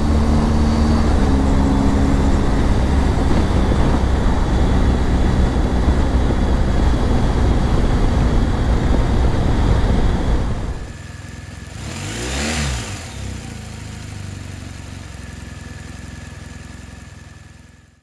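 BMW GS motorcycle riding at speed: steady wind rush and engine drone for about ten seconds. The sound then drops away, and about twelve seconds in one vehicle passes by with a rise and fall in pitch before the sound fades out.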